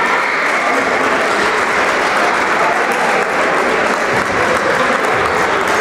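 Spectators applauding steadily in a sports hall.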